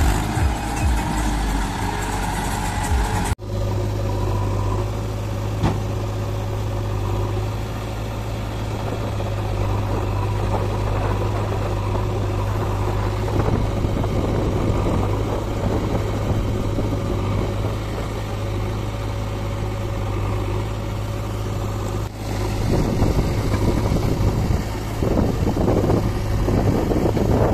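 Diesel tractor engines running with a steady low drone, the sound breaking off sharply for a moment about three seconds in.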